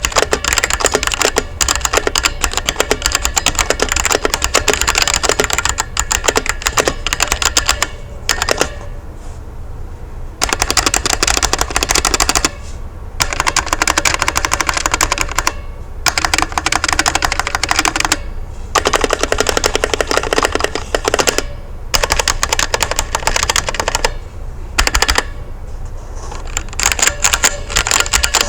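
Fast typing on a MUCAi 60% budget mechanical keyboard with red linear switches: a rapid clatter of keystrokes in runs, with a few short pauses, the longest about nine seconds in. It is a stock board with no tape or dampening mod, and the owner takes the switches for unlubed.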